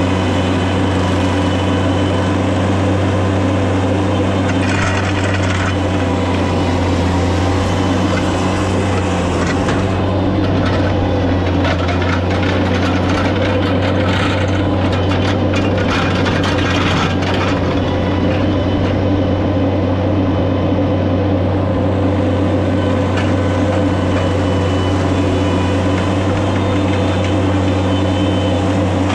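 Wood chipper's engine running steadily at a constant speed, with a stretch of cracking and knocking in the middle that lasts several seconds, as of branches being chipped.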